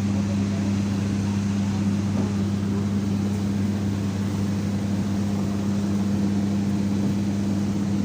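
Steady low machine drone with an even hum, from engines running on an airport apron.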